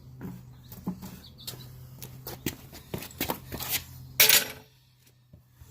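Irregular knocks and light metallic clatter over a low steady hum, with a louder scrape about four seconds in. The sound then drops away briefly near the end.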